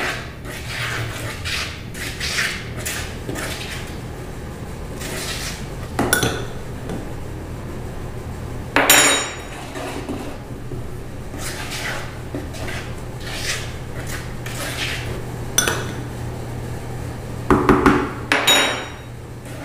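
A hand utensil stirring flour into cake batter in a plastic mixing bowl, a run of scraping and rustling strokes against the bowl. Sharper knocks come now and then, with a cluster of them near the end.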